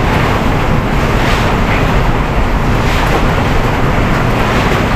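Heavy rain pouring down in a steady, loud rush, with standing floodwater being swished along a floor by a broom.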